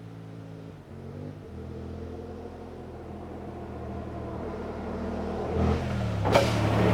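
Suzuki V-Strom 800DE's parallel-twin engine running at a low, steady speed and growing gradually louder, then revving up near the end.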